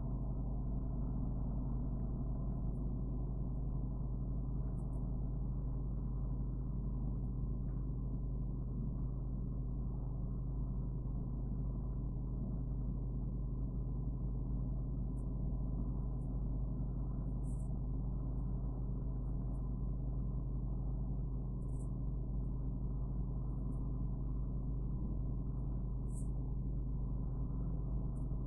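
Steady low hum at an even level, with a faint steady higher tone over it and a few faint high ticks now and then.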